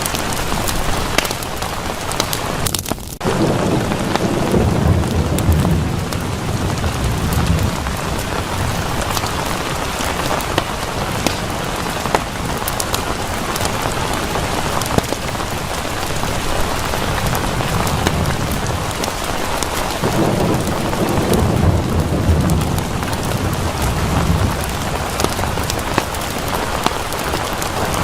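Steady rain falling, with scattered individual drops, and a low roll of thunder about three seconds in and again about twenty seconds in.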